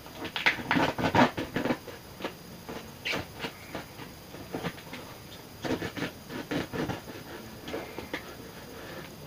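Duct tape being cut and peeled off a package: irregular crackling, tearing and scratching in short clusters, busiest in the first two seconds and again around six to seven seconds in.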